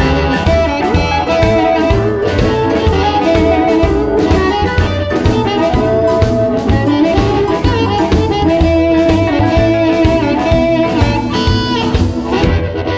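Electric blues instrumental: electric guitar playing over a drum kit with a steady beat. The cymbals drop out near the end.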